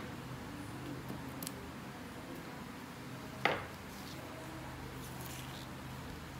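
A single sharp click about halfway through, with a few faint ticks before and after, over a steady low hum.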